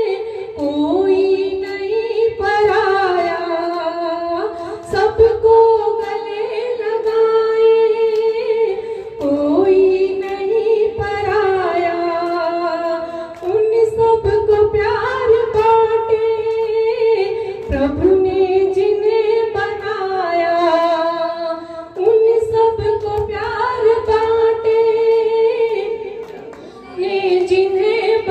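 A woman singing a Hindi devotional bhajan through a microphone, holding long, drawn-out notes that slide up and down between pitches.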